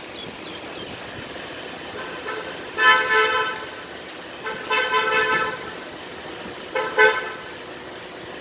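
A vehicle horn honking three times: two longer blasts and a shorter one near the end.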